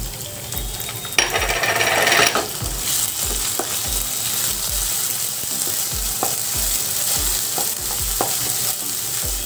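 Ginger-garlic paste dropped into hot oil with onions and green chillies in a non-stick kadai: a loud burst of sizzling about a second in, then steady frying sizzle as a wooden spatula stirs, with a few sharp taps of the spatula on the pan.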